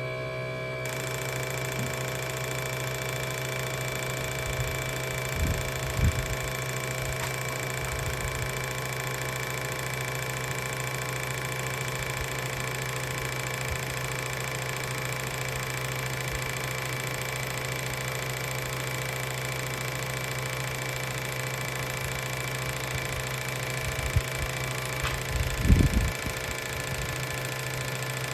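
A machine starts up and runs steadily at an unchanging pitch, with a fast mechanical pulsing, and a few short knocks come and go about six seconds in and again near the end.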